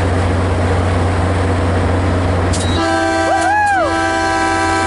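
Diesel commuter locomotive rumbling at the platform, then about three seconds in a train horn sounds, a steady chord of several notes held to the end. A person's shouted 'woo' rises and falls over the horn.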